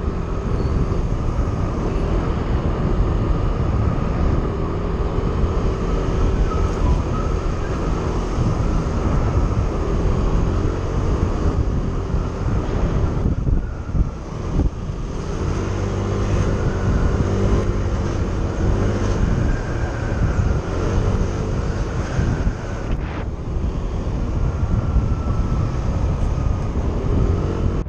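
A vehicle's engine running while travelling along a road, with road rumble and wind on the microphone. The engine note shifts a little now and then, and there is a brief lull about halfway through.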